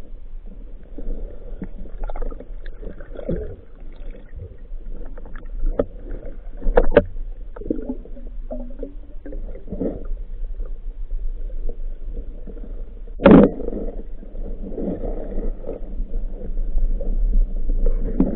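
Muffled underwater sound of water movement and bubbling around a freediver, broken by several sharp knocks, the loudest about thirteen seconds in.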